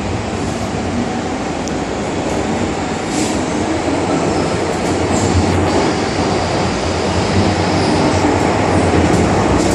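MTR Island Line metro train running on the track, with continuous wheel-and-rail noise and a low hum. The noise grows gradually louder as the train picks up speed.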